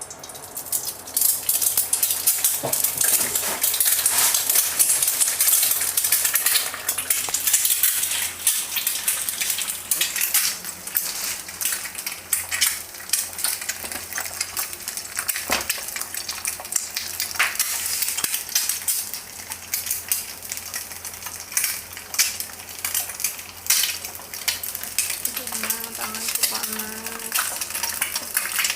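Food sizzling in hot oil in a frying pan, with a metal utensil stirring, scraping and clicking against the pan. The sizzle starts just after the beginning and keeps going.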